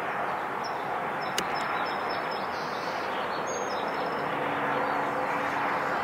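Steady rushing outdoor background noise, with a few faint, short, high chirps of small birds between about one and four seconds in and a single sharp click near one and a half seconds.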